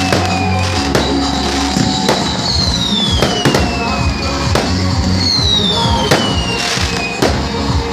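Fireworks bursting with repeated sharp bangs, over music playing.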